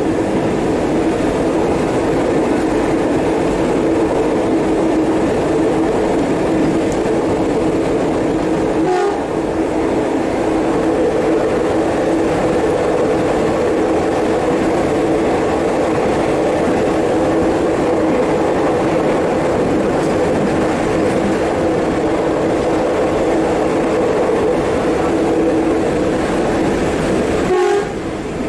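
KRL electric commuter train running at speed, heard from the driver's cab: a steady two-tone hum over a continuous rushing noise. The sound briefly dips about nine seconds in and again near the end.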